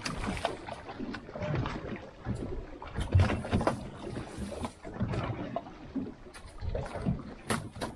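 Wind buffeting the microphone and water slapping against a small boat's hull, in uneven gusts, with a few sharp clicks near the end.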